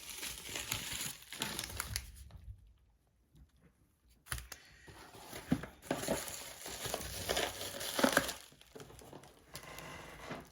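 Packaging being handled and opened: crinkling and rustling, with a quiet lull about two seconds in, then more crinkling broken by a few sharp clicks.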